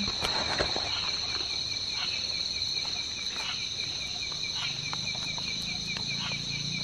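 Night insects and crickets calling steadily: a continuous high drone with a rapid, regular pulsed chirping under it. A few light knocks in the first second as rice is scooped into a bowl.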